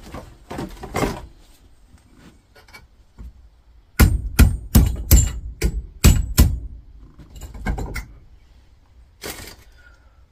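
A hammer driving a punch against a fire extinguisher's brass valve head held in a vise, to knock a part off. Scattered knocks and handling clatter give way about four seconds in to a quick run of sharp metallic strikes, with a few more blows near eight seconds and one more near the end.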